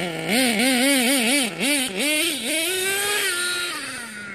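Nitro HPI Savage RC monster truck's small glow-fuel two-stroke engine being blipped, its pitch swooping up and down about four times a second, then held high for about a second as the truck pulls away, falling off near the end.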